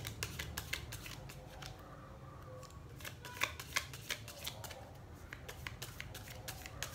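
A deck of playing cards shuffled overhand from hand to hand: a quick, irregular run of light card clicks and slaps, loudest around the middle.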